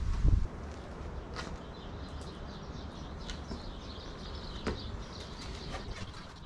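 Wind buffeting the microphone, with a couple of low thumps at the very start, a few sharp clicks and small birds chirping in the background.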